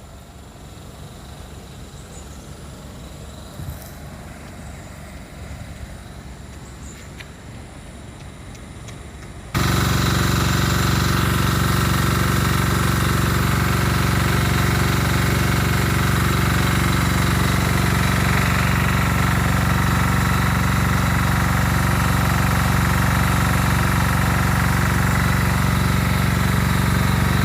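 Faint steady outdoor background, then about ten seconds in a loud, steady, machine-like drone cuts in abruptly and holds without change.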